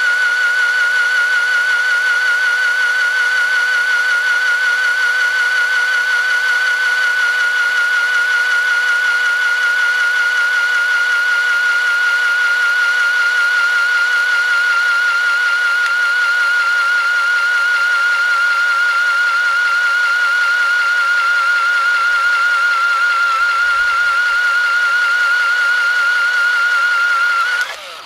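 Corded electric drill running at full speed with a steady high whine, spinning a wooden fire-drill spindle pressed into a hearth board to make a friction-fire ember. The motor stops suddenly near the end.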